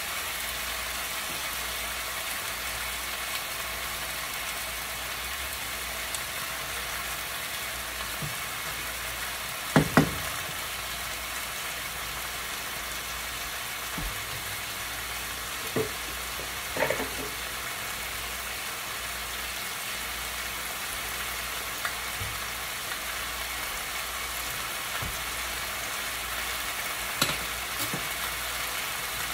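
Food frying in hot oil in a pan: a steady sizzle. A few short knocks break through it, the loudest a pair about ten seconds in.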